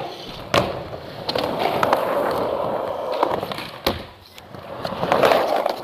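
Skateboard wheels rolling on concrete, with sharp clacks of the board on the ground: one soon after the start and two a little past the middle. The rolling dies down briefly, then picks up again.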